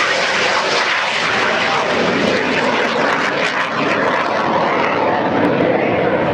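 IAR 99 Soim jet trainer's Viper turbojet passing low at high power and pulling up into a climbing turn. It makes a loud, steady rushing jet noise that deepens in the second half as the aircraft climbs away.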